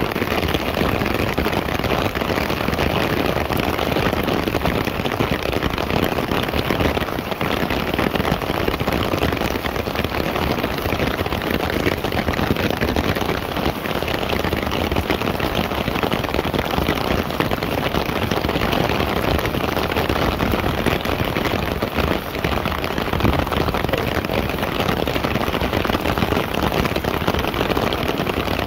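Heavy rain falling steadily, splashing on wet pavement and pattering on a clear plastic umbrella overhead. A dense, even hiss of drops with no let-up.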